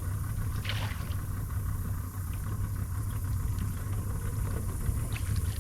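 Boat's outboard motor idling with a steady low hum, a few faint knocks over it.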